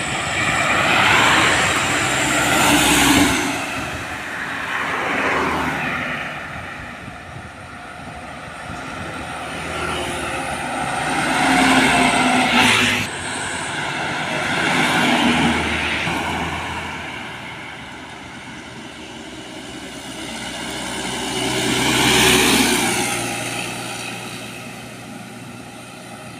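Cars and diesel trucks passing one after another on a highway, about five pass-bys, each swelling and fading with engine and tyre noise. The sound breaks off abruptly about halfway through, then more vehicles pass.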